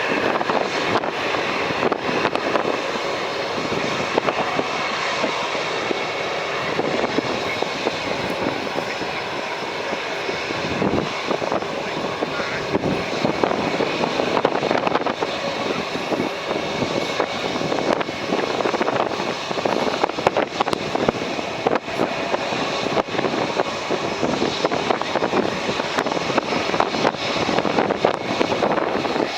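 Boeing 787-9 jet airliner's twin turbofan engines heard on its landing, a steady jet rush, largely covered by heavy wind buffeting the microphone in gusts.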